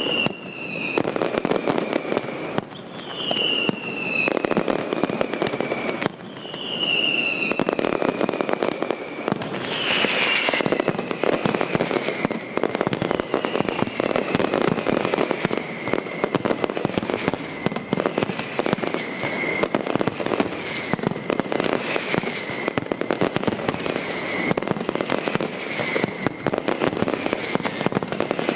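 Aerial fireworks display: a dense, continuous run of shell bangs and crackling. Over it come whistles that fall in pitch, a few long ones in the first ten seconds, then shorter ones every second or two.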